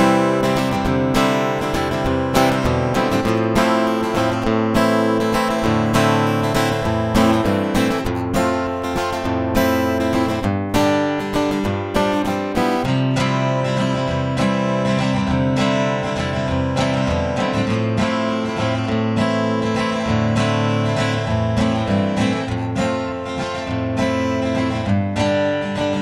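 Acoustic-electric guitar playing a continuous plucked passage. For the first 12 s or so it is the dry direct signal of the guitar. After that it is heard through the Yamaha THR30IIA acoustic amp's dynamic mic model, with EQ, compressor and long reverb, and the very top of the sound is softened.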